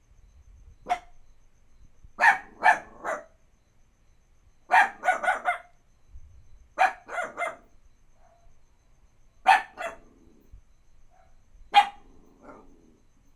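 Puppy barking repeatedly in quick runs of one to four sharp barks, with a group every two to three seconds.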